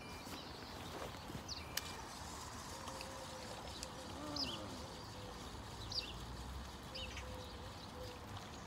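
Quiet outdoor ambience: a bird giving short, high chirps every second or two over a faint low rumble, with a single sharp tick about two seconds in and a faint steady hum in the second half.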